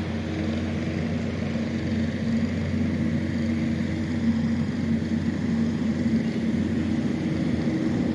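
Engine of an earth-moving machine grading a dirt pad, running steadily with an even low hum.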